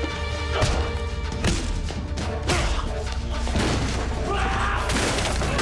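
Dramatic action music over the blows of a fistfight: heavy thuds about once a second, then a crash near the end as furniture is knocked about.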